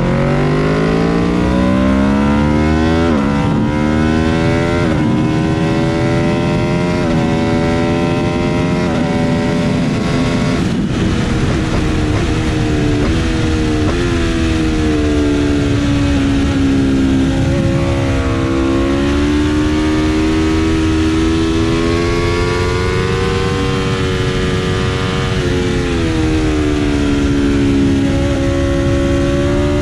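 Aprilia RSV4 RF's V4 engine pulling hard through the gears: the pitch climbs and drops sharply at four quick upshifts in the first ten seconds or so, then it rises and falls with the throttle through the corners. A steady rush of wind runs under it throughout.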